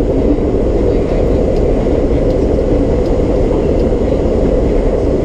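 An R32 subway car running at speed, heard from inside the car: a steady, loud rumble with a few faint ticks.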